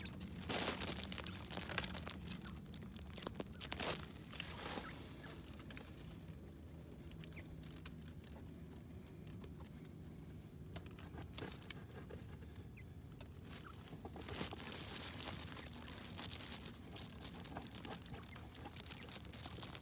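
Light rustling and crackling of dry leaf litter as quail move and scratch about in it, with a few louder rustles in the first few seconds and again past the middle.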